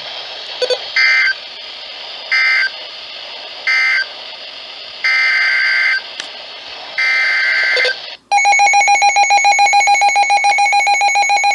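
NOAA Weather Radio Emergency Alert System (SAME) digital data bursts: three short screechy bursts, then two longer ones, over radio hiss. These mark the end of one warning and the header of the next. About 8 seconds in, a loud, rapidly pulsing alert tone starts and keeps sounding, signalling a new severe thunderstorm warning.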